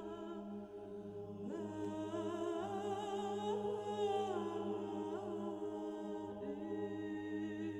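Background music: a sustained drone with a wordless vocal melody that enters about a second and a half in and wavers and glides in pitch.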